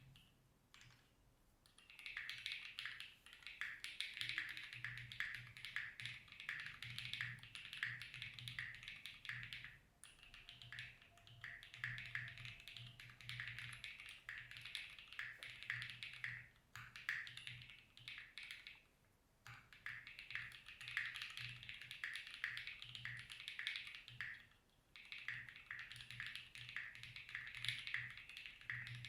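Mechanical keyboard being typed on in fast, steady runs with short pauses: a Deadline Studio New Retro 66 with Dangkeeb Banana Milk linear switches lubed with Krytox 205g0, GMK keycaps, an FR4 plate and plate foam but no case foam. Each keystroke gives a quick clack with a low undertone as the keys bottom out.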